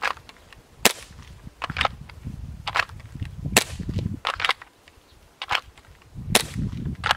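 Airsoft pistol firing a string of sharp pops, roughly one a second, with wind rumbling on the microphone.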